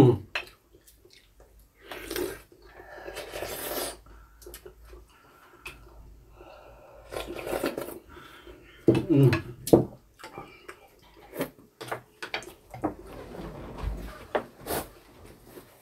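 Table eating sounds: spoons clicking against ceramic bowls, slurping of broth and chewing, in short bursts. There is a low bump near the end.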